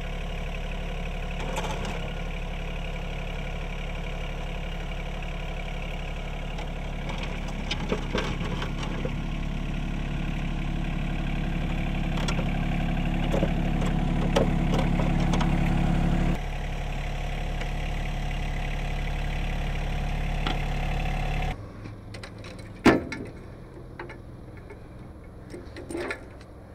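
Sub-compact tractor engine running steadily while the tractor pushes snow with a front blade, its sound changing a little over halfway through. Near the end the engine sound gives way to a quieter stretch with one sharp clank and a few lighter knocks as the blade's angle is adjusted on its mount.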